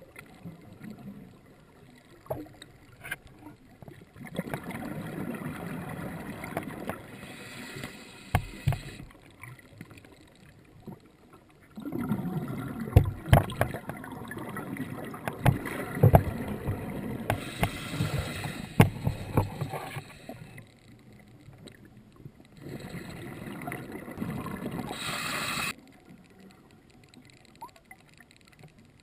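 Scuba diver breathing underwater: the regulator's exhaled bubbles gurgle in several long bursts full of small pops, with quieter gaps between breaths.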